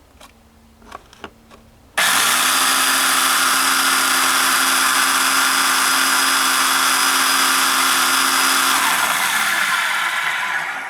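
A vacuum cleaner motor, running out of its housing, starts abruptly about two seconds in and runs loud with a steady whine over a harsh rasping hiss, then winds down near the end. The motor's bearing is worn, letting the shaft wobble so the brushes spark heavily at the armature.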